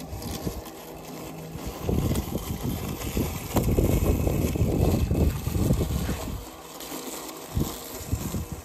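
Terramow Vision robotic lawn mower running, its electric blade motor humming steadily as it mows and turns. A loud, uneven low rumble covers it for a few seconds in the middle.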